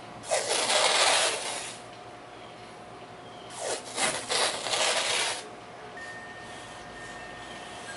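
Blue painter's tape being pulled off its roll: one long rip a moment in, then a few shorter rips in quick succession around the middle.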